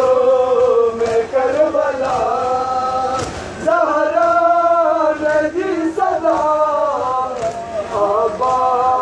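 A group of men chanting a noha, an Urdu mourning lament, in unison on a slow melody held on long notes. Sharp slaps of hands striking chests in matam fall every second or so over the chant.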